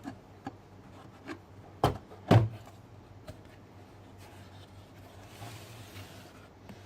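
Cardboard product box being opened by hand: a few light knocks, two louder thumps about two seconds in, then soft rustling.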